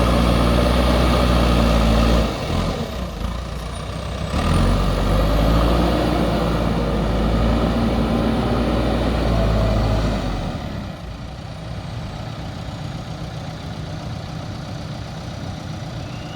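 Backhoe loader's diesel engine working under load. It eases off about two seconds in, pulls hard again from about four seconds, then drops to a lower, steady run for the last six seconds.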